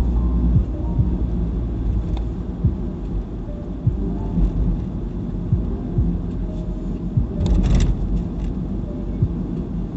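Road and engine noise inside a moving car's cabin: a steady low rumble with small bumps from the road surface, and a brief louder burst of noise about three-quarters of the way through.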